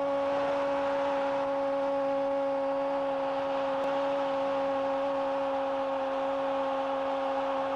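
Football commentator's goal cry: one long 'gooool' held on a single unbroken pitch, over a crowd cheering in the stadium.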